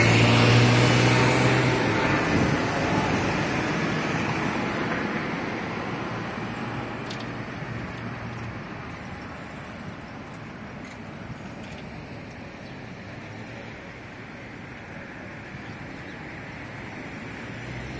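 Jet airliner flying over, its engine noise fading away over the first several seconds, followed by steady road traffic noise.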